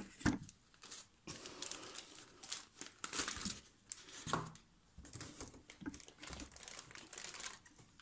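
Clear plastic packaging crinkling and rustling as a wrapped laptop and its foam packing pieces are pulled out of a cardboard box, with a few knocks as it is handled.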